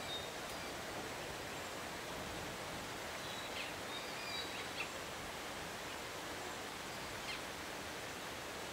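Steady outdoor background hiss with a few faint, short high-pitched chirps scattered through it.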